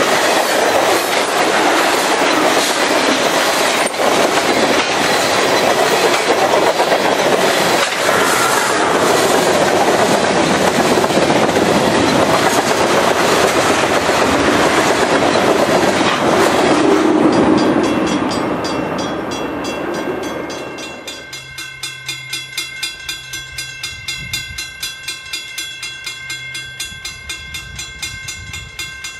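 Loaded tank cars of a freight train rolling past close by, wheels clicking over the rail joints, the noise fading off a few seconds before a sudden change. Then a level-crossing bell rings steadily, pulsing about twice a second, over a faint low rumble of an approaching train.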